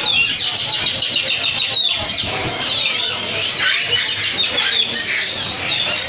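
Many caged birds chirping and squawking at once: a dense, continuous chatter of short high calls overlapping each other.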